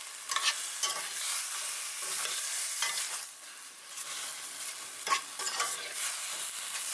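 A utensil stirring and scraping against a pan in irregular strokes, tossing julienned bitter melon and vegetables in hot vinegar, over a steady sizzling hiss from the pan.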